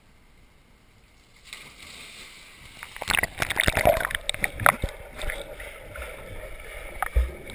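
Dogs swimming in a pool, water splashing and sloshing, busiest about three to five seconds in.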